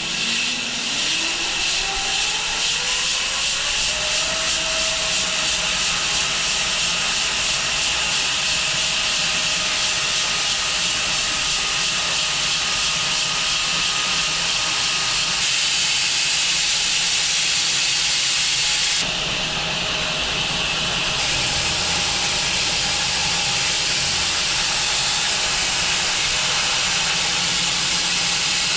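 Home-built wide bandsaw mill starting up, with a rising whine over the first few seconds as it comes up to speed. It then runs with a steady, loud hiss while sawing through an elm log, and the hiss changes slightly and drops a little about two-thirds of the way in.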